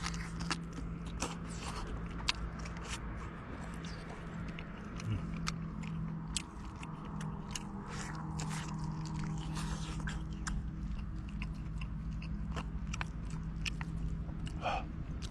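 A person chewing and biting into tender braised beef rib meat close to the microphone, with many short wet mouth clicks, over a steady low hum.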